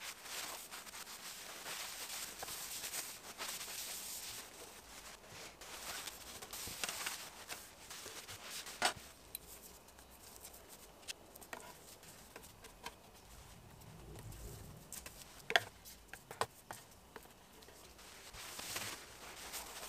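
Paper towel wiping oil onto a wooden chopping board: a faint scratchy rustle of paper rubbing on wood, with paper crinkling and a few small knocks.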